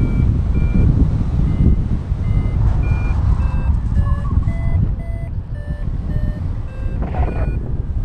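Paragliding variometer beeping in short repeated tones, about two a second, shifting in pitch, signalling that the glider is climbing in lift. Wind rushes loudly over the microphone underneath.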